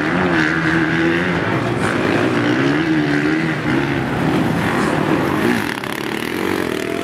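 Several small motocross bike engines revving up and down, their pitch rising and falling in waves, with the riders held at the starting gate before the start.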